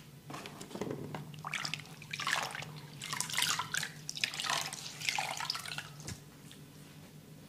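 Water splashed by hand in a run of irregular splashes and drips, as when rinsing a face during a face wash, over a low steady hum. The splashing stops about six seconds in.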